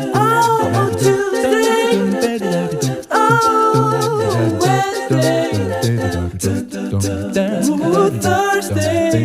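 Background music: a song with a singing voice holding and sliding between notes, over a light clicking beat.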